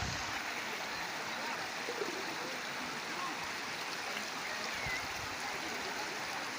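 Steady rush of water, an even hiss with no letup, as from the Lakhaniya Dari waterfall's flow.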